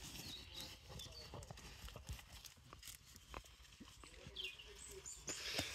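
Sheep eating: faint, scattered soft clicks of cropping and chewing, irregular and quiet throughout.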